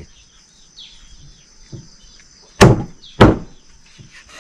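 Large knife chopping raw meat on a thick round wooden chopping block: two heavy chops about half a second apart near the middle, with lighter knocks before and after.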